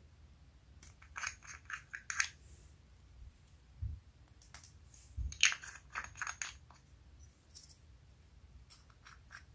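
Small plastic jars of star-shaped glitter being handled: clusters of light plastic clicks and rattles as a jar is opened and the glitter is shaken out onto the slime, with a couple of dull taps around the middle.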